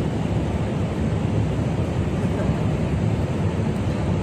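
Wind buffeting a phone's microphone: a steady, fluttering low rumble.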